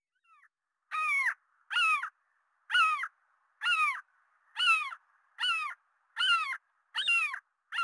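A gull calling: a run of about eight harsh calls, roughly one a second, each falling in pitch.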